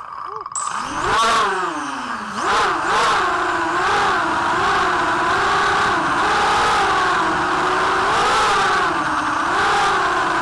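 ZMR250 racing quadcopter's brushless motors and propellers whining close-up from the onboard camera, the pitch rising and falling constantly with the throttle as it flies. Early on the pitch drops steeply and then climbs again as it takes off.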